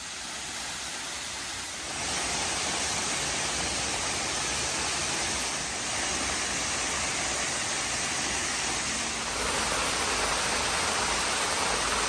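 Steady rush of a waterfall pouring over a rock ledge and splashing onto the rocks and pool below. It steps up in loudness about two seconds in and again near the end.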